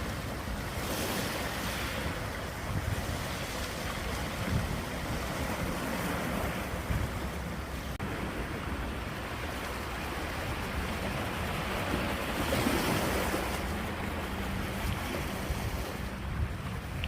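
Ocean waves breaking and washing in, a steady surf noise that swells about a second in and again around twelve to thirteen seconds in.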